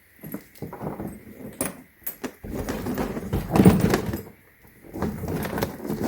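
A hardshell carry-on suitcase being handled: irregular scraping and rubbing with clicks and knocks.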